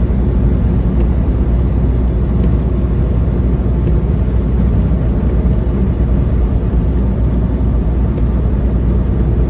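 Steady low rumble of a semi-truck's engine and road noise heard inside the cab while driving, unchanging throughout.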